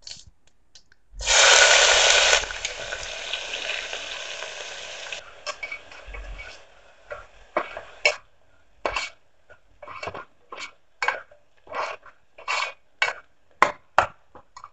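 Chopped onion and garlic sizzling in hot mustard oil in a steel pressure cooker: a loud sizzle starts about a second in and fades over a few seconds. Then a steel ladle scrapes and knocks against the cooker in short strokes, about two a second, as the onions are stirred.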